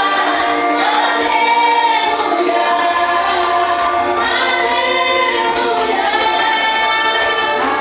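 Group of voices singing a worship song together, holding long notes.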